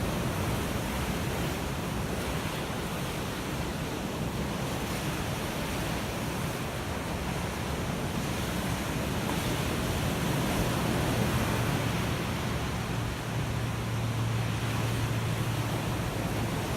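Ocean waves breaking and washing on a shore: a steady rush of surf that swells a little about ten seconds in.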